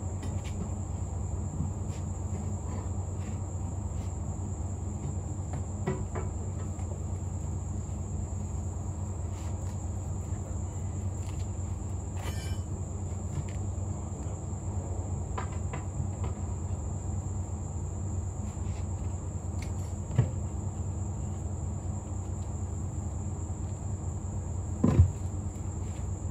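Steady high-pitched insect chorus over a continuous low hum, with scattered metal clanks and knocks from tire irons and pry bars being worked on a wheel rim; the loudest knocks come about twenty seconds in and again near the end.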